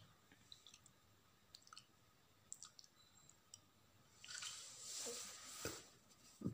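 Near silence with faint scattered clicks, then about two seconds of soft rustling and a short thump near the end.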